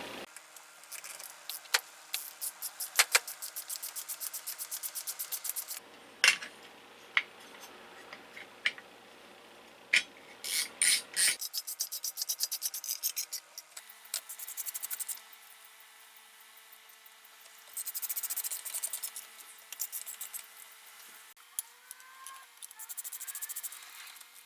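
Hand work on metal or wood parts in several short spliced clips: runs of fast scraping or rubbing strokes, broken by sharp clicks and knocks.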